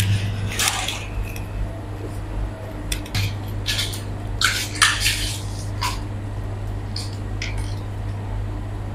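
Benchtop microcentrifuge spinning with a steady low hum, under scattered light clicks and rustles of plastic tubes and lab ware being handled at the bench.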